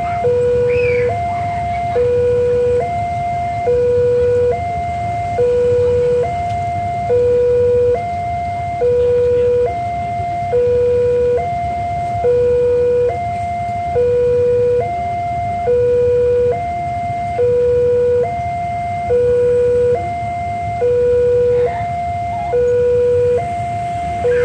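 Railway level-crossing warning alarm sounding a two-tone electronic signal, a lower and a higher tone taking turns about every second, repeating steadily. It is the crossing's warning that a train is approaching and the road is closed.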